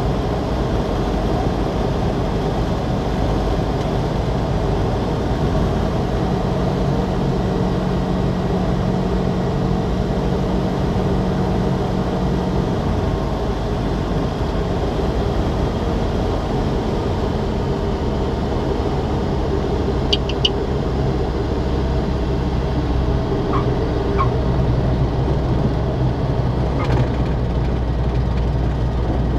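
SportCruiser's Rotax 912 four-cylinder engine and propeller running at low power, heard from inside the cockpit with wind noise, through the landing flare, touchdown and rollout; the engine note drops lower about halfway through. A few short high chirps come about two-thirds of the way in.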